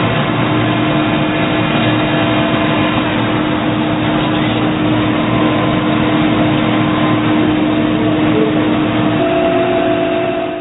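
Doosan Puma ST20G CNC lathe running: a steady mechanical hum and hiss with several held tones that shift about nine seconds in, then it cuts off abruptly.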